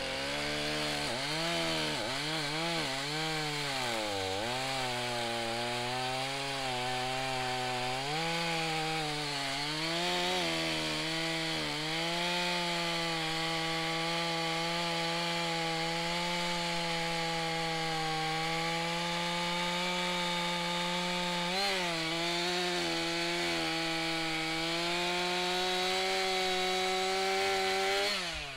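Stihl MS 461 two-stroke chainsaw cutting a log, its engine note dipping and recovering several times in the first dozen seconds, then running steadily under load until the sound cuts off abruptly near the end.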